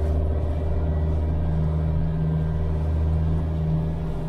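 Boat's outboard motor running steadily under way, heard from inside the small pilothouse cabin, holding an even low drone.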